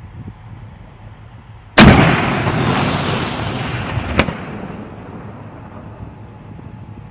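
A 120 mm mortar on an AMPV mortar carrier fires once with a loud blast about two seconds in. A rumbling echo follows and fades over several seconds, with a second, sharper crack about two seconds after the shot. A low engine rumble sits underneath before the shot.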